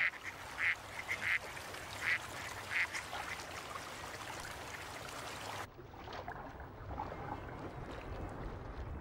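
Ducks quacking, five or six short calls over the first three seconds, over a steady wetland ambience. About six seconds in, the sound turns muffled and dull, with the high end gone.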